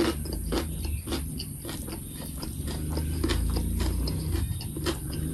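A person chewing a mouthful of fresh cucumber dipped in chili paste, with wet crunching clicks about twice a second.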